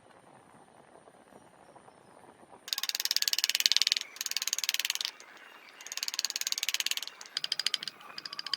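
A hand tool scraping across wood in strokes of rapid ticking, each about a second long: five strokes, beginning nearly three seconds in, the last ones shorter.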